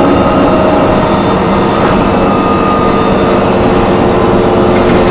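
Interior sound of a New Flyer D40LF transit bus under way: its Cummins ISM diesel and Voith transmission running with a heavy rumble and a steady whine of several tones over it. This is the screeching that the rider traces to either the brakes or the transmission.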